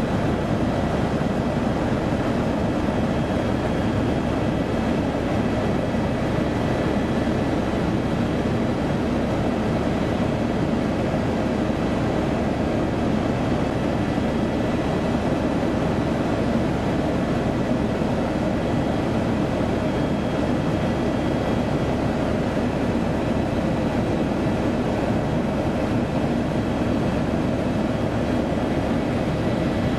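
Steady in-flight cabin noise of a small sightseeing aircraft, its engine running at an even cruise with a dense drone and a few faint steady whines.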